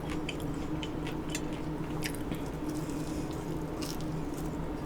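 Close-miked chewing of chicken wings: soft wet squishing and scattered small clicks of teeth and mouth, over a steady low hum.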